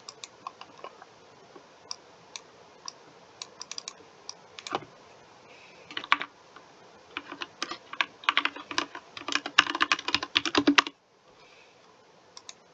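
Typing on a computer keyboard: a few scattered keystrokes, then a fast flurry of typing about two thirds of the way through that stops suddenly near the end.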